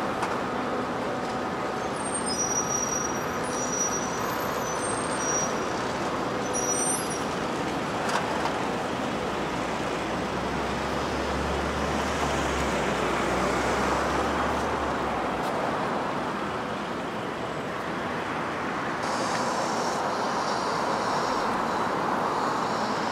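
Busy city-street traffic: a steady wash of cars and buses passing, with a heavier vehicle's low rumble going by about halfway through.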